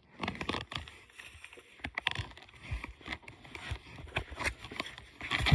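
Irregular rustling and soft knocks of close handling, with paper strips being scooped up off a carpet; a louder burst of rustling comes near the end.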